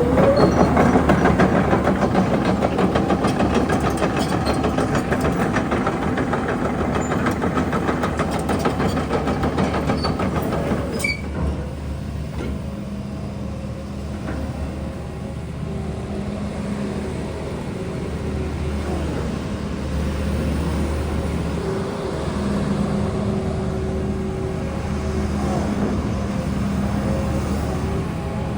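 Doosan DX300LC-5 hybrid tracked excavator running. A loud, dense rattling clatter for about the first eleven seconds stops suddenly, leaving a quieter, steady engine hum with a low drone.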